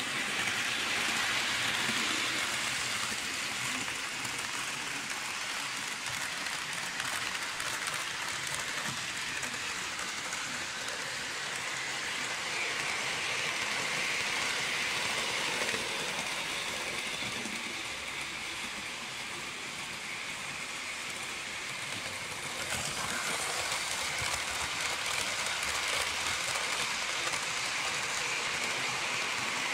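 Märklin H0 model train running on metal three-rail track, a steady rushing rattle of wheels and motor that grows a little louder about two thirds of the way through.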